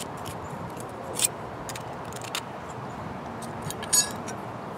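Thin stainless steel plates of a Bushbox Micro Pocket wood stove being slotted together by hand: a few light metallic clicks, the loudest a short jingling clink about four seconds in.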